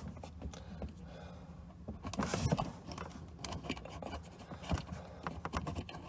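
Scattered light clicks, taps and rustles of a hand working at a plastic Whale caravan water inlet socket, reaching in to undo the lock nut on its pressure-switch screw. The busiest clicking comes about two seconds in, with more from the middle on.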